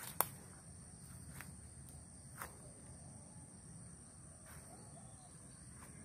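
Steady high-pitched insect drone over a low rumble, with one sharp click just after the start and a few fainter ticks.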